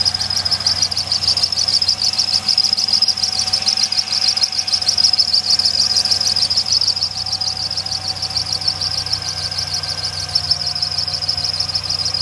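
2001 Pontiac Grand Am's 2.4 L Twin Cam four-cylinder idling, with a little belt squeal from the accessory drive belt. A loud, steady, high-pitched trill with a rapid flutter sits over it.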